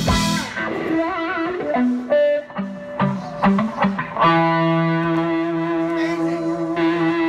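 Stratocaster-style electric guitar playing a Chicago blues lead: single-note phrases with vibrato, then a chord struck about four seconds in and held ringing.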